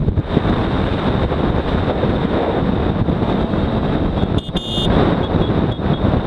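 Riding on a Honda CBR250R at speed: wind rushing over the microphone, with the single-cylinder engine and tyre noise underneath as one steady, loud rush. About four and a half seconds in there is a short break with a brief high beep-like tone.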